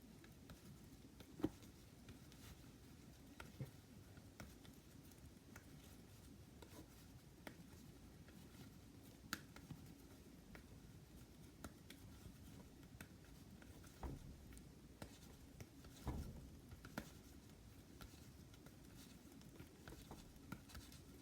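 Near silence with faint, scattered soft taps and rubbing: hands rolling a ball of slime on a surface to smooth out its cracks.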